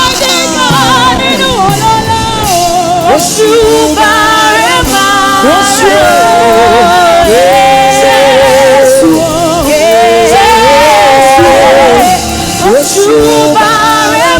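Live gospel praise music: a singer holds long, wavering notes of a melody over steady instrumental accompaniment.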